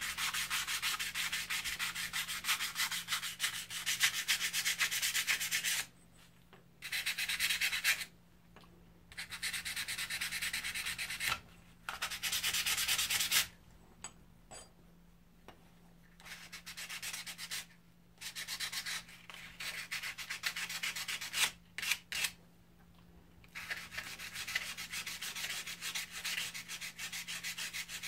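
A steel molding-plane iron is hand-sanded on 400-grit sandpaper: rapid back-and-forth rubbing strokes in several spells of a few seconds each, broken by short pauses.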